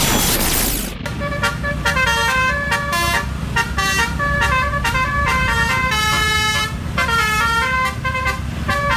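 Telolet truck horn, a multi-tone horn, playing a stepping melody over a low engine rumble. It comes in about a second in, after a burst of loud noise.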